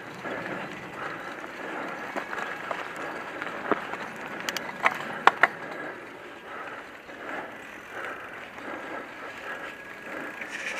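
Mountain bike rolling along a dirt forest trail: steady rolling noise, with a few sharp clicks and rattles from the bike about halfway through.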